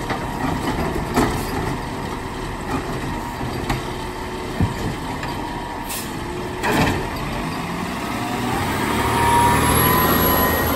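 Peterbilt side-loader garbage truck's diesel engine running while its automated arm finishes dumping a cart and lowers it back to the ground, with several sharp clunks and knocks. Near the end the engine revs up with a rising tone as the truck pulls away.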